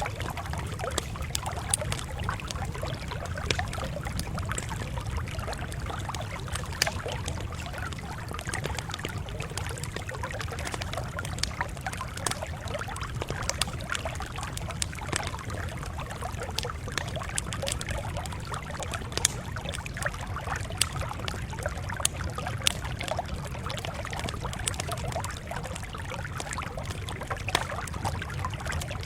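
Campfire burning, wood crackling and popping in sharp, irregular snaps over a steady low rumble.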